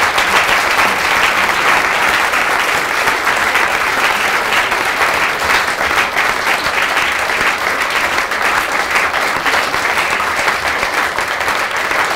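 A lecture-theatre audience applauding: sustained, dense clapping from many people.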